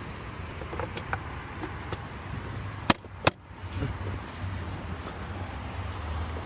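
Small clicks and knocks of engine parts being handled and set in place, with two sharp clicks about half a second apart near the middle, over a steady low vehicle rumble.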